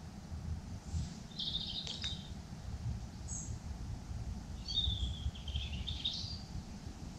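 Small birds chirping in short phrases, once about a second and a half in and again from about five to six seconds in, with a brief higher call between them, over a low steady rumble. A single sharp click comes about two seconds in.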